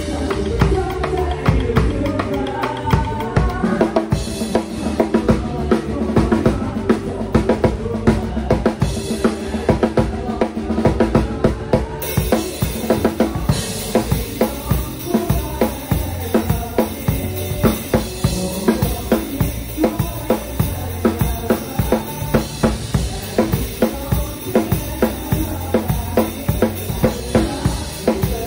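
Acoustic drum kit played to a song's backing track: kick drum, snare and cymbals in a steady, driving beat, with the recorded band and melody underneath. About twelve seconds in the cymbals grow brighter and more continuous.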